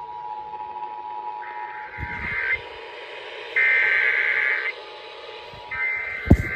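An Emergency Alert System broadcast over radio. Three roughly one-second bursts of warbling digital data tones make up the SAME header, sent three times to start an alert. They play over the steady two-tone attention signal, which fades out after about two and a half seconds. A few sharp knocks come near the end.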